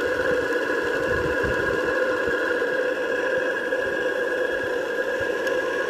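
Howes & Baylis Gemini twin-cylinder model steam engine running steadily under steam: a quiet, even hum with a fast, fine flutter beneath it.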